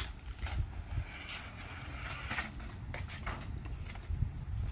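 Crumpled brown kraft packing paper rustling and crinkling in short bursts as it is pulled back inside a cardboard box, over a low steady rumble.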